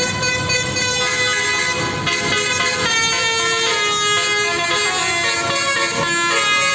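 Indonesian bus 'telolet' horn, a multi-tone musical horn, playing a continuous tune of changing notes.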